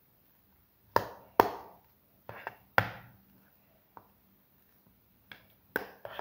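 Slotted metal spoon mashing boiled potatoes in a bowl: irregular sharp knocks as the metal strikes the bowl, about eight in all.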